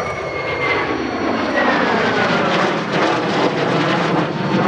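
MiG-29 Fulcrum's twin Klimov RD-33 turbofan engines as the fighter flies past, a loud jet roar with a high whine that slowly falls in pitch. The roar thickens in the low end from about a second in.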